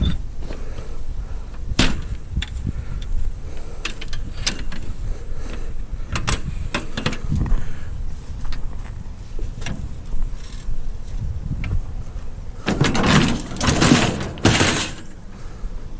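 Scrap metal pieces knocking and clanking as they are handled and loaded, with scattered sharp knocks and a louder run of metal clattering near the end.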